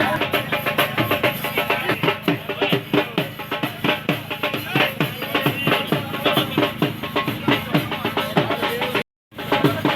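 Music with fast, steady drumming, several strikes a second. The sound drops out completely for a moment about nine seconds in, then the drumming resumes.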